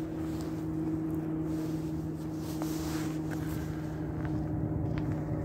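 A steady low mechanical hum, one unchanging pitch with its overtone, over a low rumble. A few faint clicks come through in the second half.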